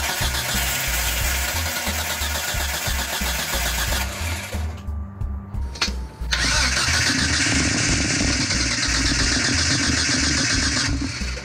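Jeep 4.0L inline-six turned over on its starter motor in two cranking bursts of about four seconds each, with a short pause between. It is cranked with the valve cover off to check for oil at the rockers, and none comes up, which the owner takes for a failed oil pump.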